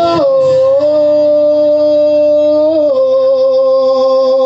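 Male singer holding one long sung note on a vowel, stepping down slightly in pitch twice, with acoustic guitar beneath.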